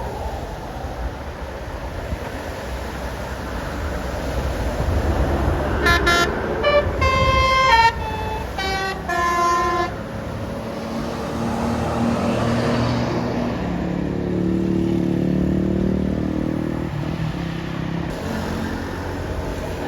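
Bus telolet horn (Basuri multi-tone horn) playing a short tune of several stepped notes for about four seconds, over traffic noise. A few seconds later a heavy engine passes, its pitch falling as it goes by.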